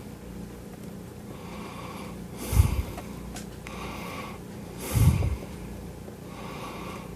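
A man breathing through his nose close to the microphone: a run of slow breaths, with two stronger exhales about two and a half and five seconds in that blow on the mic.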